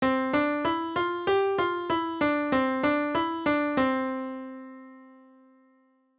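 MIDI electric piano playing a run of about thirteen single notes at roughly three a second, stepping up and down within a narrow range; the last note is held and fades out over about two seconds.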